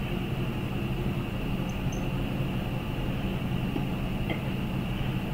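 Steady low hum and hiss of background noise, with a couple of faint ticks.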